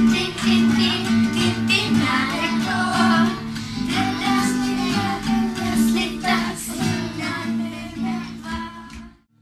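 Acoustic guitar strummed in a steady rhythm, accompanying children singing a song; it cuts off sharply just before the end.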